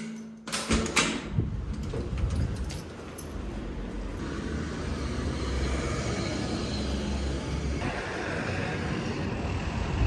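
A door being opened, a few sharp clicks and knocks, followed by steady outdoor street noise with a low rumble of traffic.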